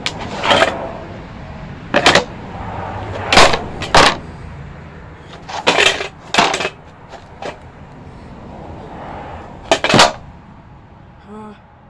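Snowboard knocking and scraping on bare concrete pavement: a string of sharp, irregularly spaced knocks, about seven loud ones, as the board is hopped and landed.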